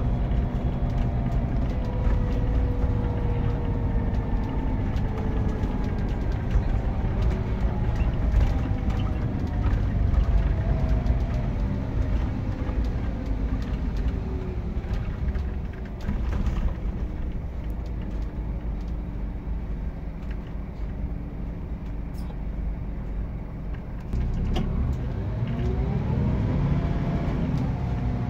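Scania K410EB6 coach's rear-mounted 13-litre six-cylinder diesel engine running, heard from inside the passenger saloon. Its note falls away, runs quieter for several seconds, then rises and grows louder near the end as the coach accelerates.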